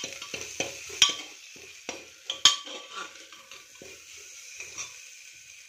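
A metal spoon scraping and knocking against the inside of a metal pressure cooker while stirring potatoes frying in butter, with a steady sizzle underneath. The knocks come often in the first three seconds, the loudest about two and a half seconds in, then thin out.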